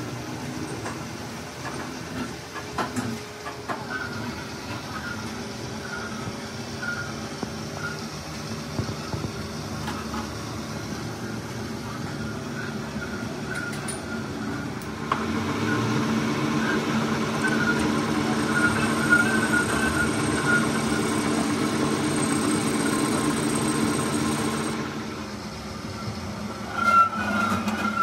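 A metal lathe starts about halfway through, runs steadily for about ten seconds, then winds down. Before and after it there are small metal clicks from measuring tools and the workpiece over a low workshop hum.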